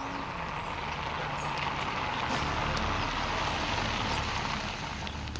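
Mercedes-Benz saloon driving slowly over a stone-paved bridge: engine and tyre noise grow louder as it approaches, then ease off as it slows to a stop.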